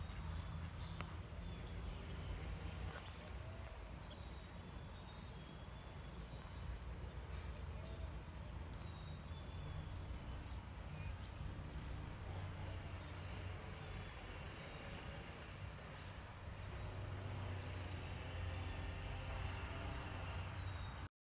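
Outdoor ambience: an insect chirping steadily at a high pitch about twice a second, with a few short bird chirps and a low rumble underneath. The sound cuts off abruptly just before the end.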